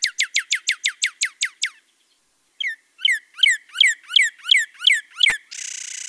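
Northern cardinal singing. It gives a fast run of short downslurred whistles, about eight a second, then after a short pause a slower series of louder downslurred whistles, about three a second. A second of steady hiss follows near the end.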